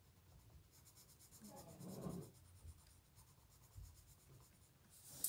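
Faint scratching of a black coloured pencil on sketchbook paper, filling in an area with repeated strokes.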